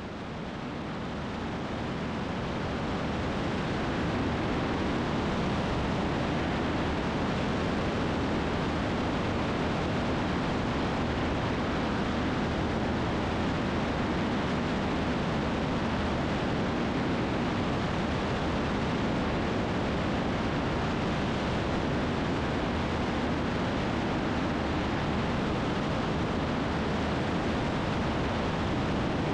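Single-engine Cessna's piston engine and propeller running steadily in cruise, mixed with rushing wind on an outside-mounted camera. It fades up over the first few seconds and then holds level.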